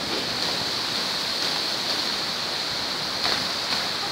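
Steady rushing outdoor background noise with a constant high hiss running through it.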